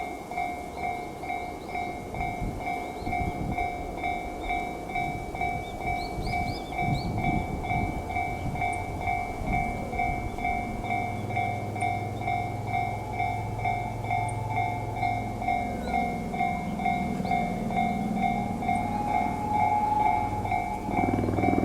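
Japanese railway level-crossing alarm ringing: an electronic bell striking a steady, evenly paced ding about twice a second. A low rumble builds in the second half.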